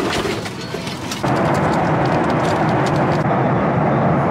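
Rain ticking against a parked airliner's window over ground noise; about a second in, it cuts to the loud, steady rush of a Boeing 737's cabin in cruise.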